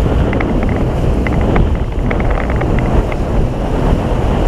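Triple outboard motors running steadily as the boat moves ahead, mixed with the rush of the wake and wind buffeting the microphone. Scattered light clicks are heard throughout.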